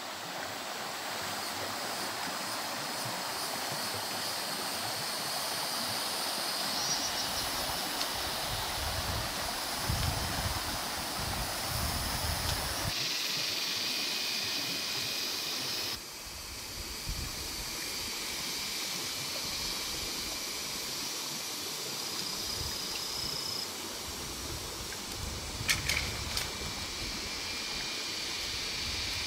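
Steady rushing outdoor noise of flowing water and foliage, with thin high steady tones fading in and out. The sound jumps abruptly twice, and a short burst of sharp snaps comes near the end as bushes are grabbed and pulled.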